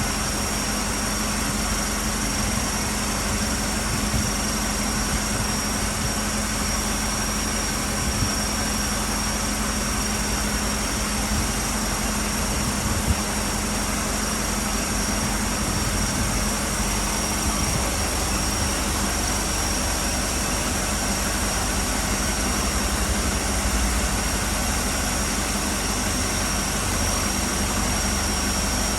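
Vehicle engine idling steadily, with a thin, high, steady tone running over it.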